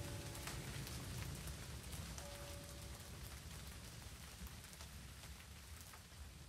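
Steady rain falling, a fine patter of drops that slowly fades out. A faint held note sounds briefly twice in the first half.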